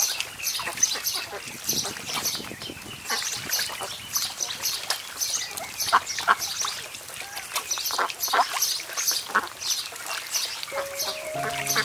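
Ducks splashing and bathing in a small pond, water slapping with many short splashes, and ducks quacking now and then. Soft music comes in near the end.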